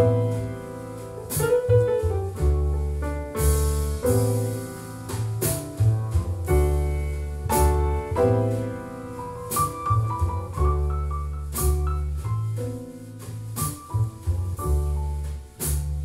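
Instrumental music with piano, bass and regular drum or cymbal hits, played back through a pair of JBL Studio 280 three-way floorstanding loudspeakers and picked up in the room.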